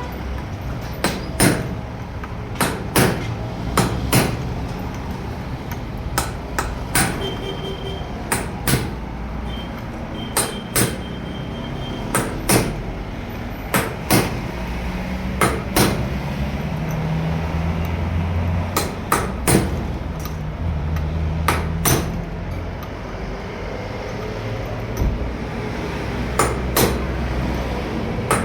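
Hand hammer striking repeatedly, one blow every second or two at an uneven pace, over a steady low rumble.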